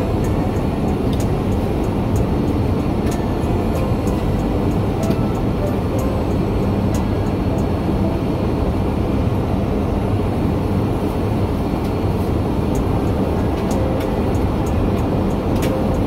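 Jet airliner cabin noise in flight: a steady, loud drone of engines and airflow heard from inside the passenger cabin.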